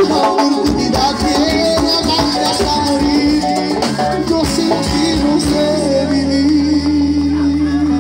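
Live Latin tropical band playing with accordion, brass, shaken maracas and a male lead singer. About five and a half seconds in, the percussion drops out and the band holds one long sustained chord.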